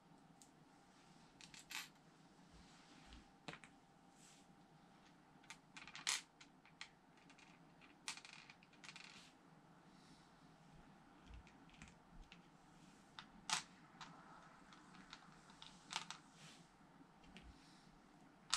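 Small plastic LEGO pieces being handled, giving scattered, irregular sharp clicks and taps as they knock together and are set down on the table over a quiet background.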